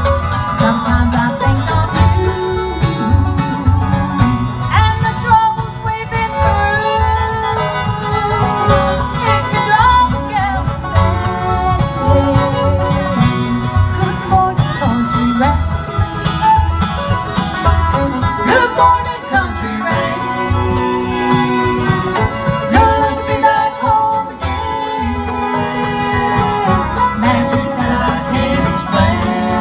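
Bluegrass band playing live: fiddle, banjo, mandolin, acoustic guitar and upright bass, with a steady beat.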